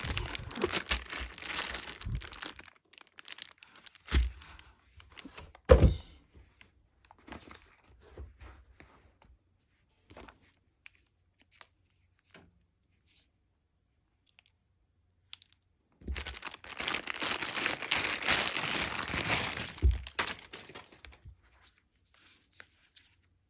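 Laptop packaging being unwrapped and handled: wrapping crinkles and tears, two dull thunks follow, then a quiet stretch of small taps before another few seconds of crinkling and tearing that ends in a thunk.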